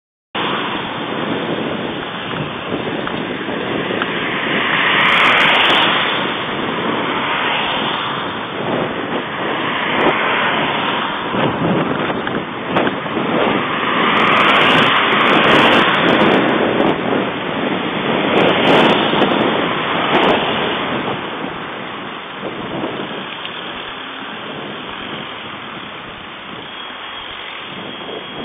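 Wind rushing over a cyclist's camera microphone while riding along a road, mixed with the noise of passing traffic; the rush swells in stretches and eases off near the end.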